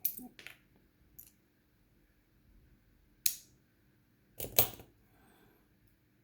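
Small metal clicks and taps of lock parts and tools being handled while reassembling an Abus 83 lock cylinder: a few sharp clicks at the start, a single one about three seconds in, and a louder cluster about four and a half seconds in.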